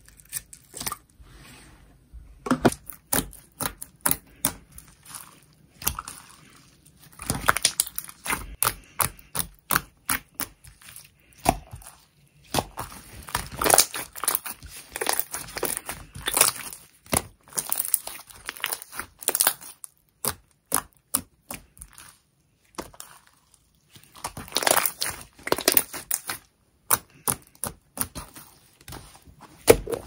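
Clear slime mixed with small foam beads, scooped with a plastic spoon and then stretched and pressed by hand, giving irregular crackling and popping clicks in bunches with short pauses between them.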